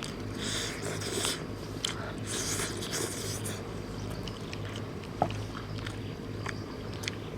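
A person biting and chewing crunchy food in two main bursts of crunching, with scattered clicks, over a steady low hum.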